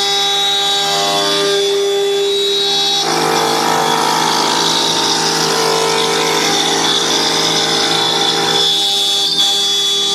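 CNC wood router spindle running with a steady whine as its bit mills the edge of a curved wooden shell. A coarser cutting noise joins from about three seconds in and drops away near nine seconds.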